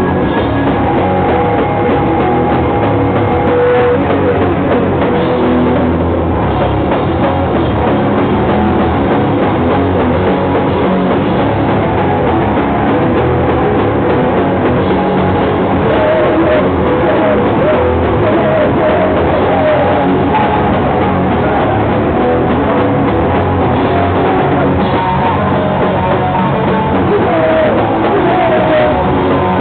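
A live rock band plays loudly and without a break: electric guitars over a drum kit with crashing cymbals.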